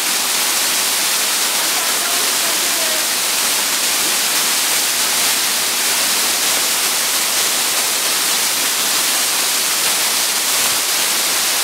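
Steady rush of a partly frozen waterfall pouring into the pool at its base, an even hiss with no breaks.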